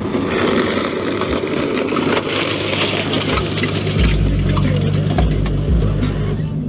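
A motor vehicle's engine running at idle over a noisy background, with a deeper steady rumble coming in about four seconds in.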